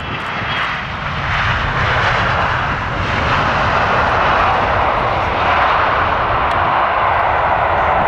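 Jet engine noise from a landing Boeing 777-300ER's GE90 turbofans: a loud roar that swells over the first second and a half, then holds steady with a low rumble beneath.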